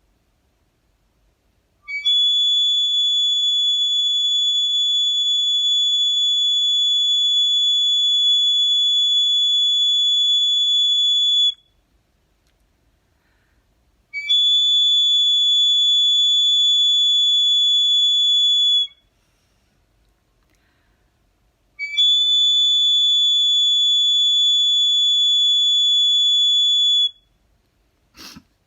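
Hand-made bone whistle blown in three long, steady, shrill notes of one high pitch, the first about nine seconds long and the other two about five, each starting with a short chirp. A brief knock just before the end.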